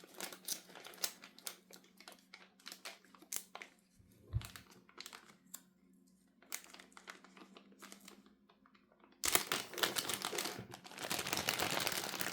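Plastic packaging around a headphone cable crinkling and rustling as it is handled, with scattered light clicks and taps; the crinkling turns louder and denser about nine seconds in.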